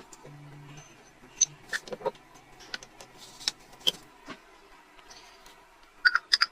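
A small electric motor hums briefly, then scattered sharp metallic clicks and knocks follow, several in quick succession near the end.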